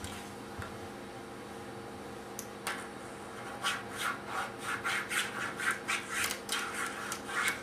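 A child scribbling quickly with a drawing tool on paper, scratchy back-and-forth strokes about three a second, starting a few seconds in.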